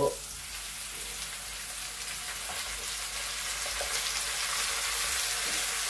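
Oil sizzling in a wok with onions, garlic and ginger frying as a whole browned chicken is set in; a steady hiss that grows a little louder.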